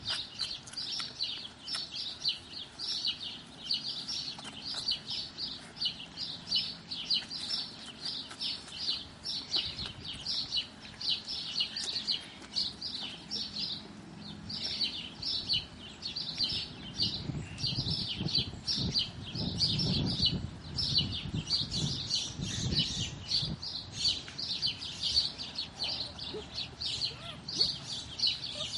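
A small bird chirping over and over, short high chirps a couple of times a second without pause. A low muffled noise runs underneath for several seconds past the middle.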